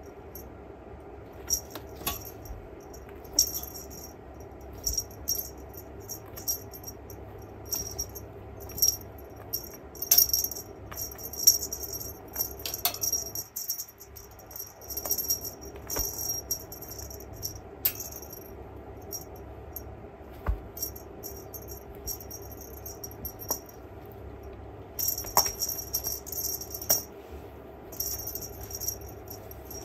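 A small jingling rattle in a cat's wand toy sounding in short, irregular bursts as a calico cat bats, grabs and bites it, with a few brief knocks among them.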